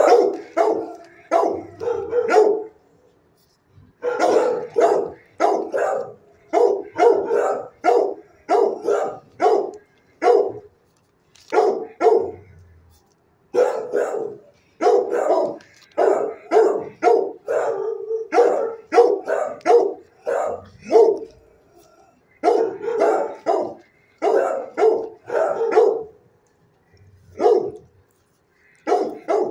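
A dog barking repeatedly, about two barks a second, in bouts of several barks with short pauses between them.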